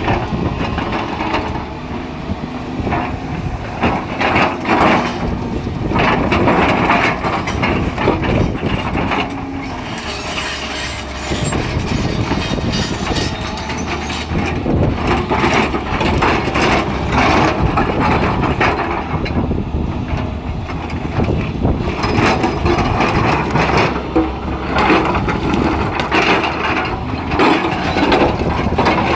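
Excavator working among stones: the engine runs under a steady low drone while rocks scrape and clatter against the bucket and each other in irregular bursts.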